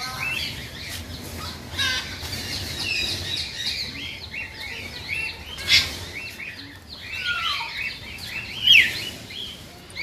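Several birds chirping and calling in a busy chorus of short repeated chirps. There is a short sharp noise a little past halfway, and a few falling whistles later on, the loudest near the end.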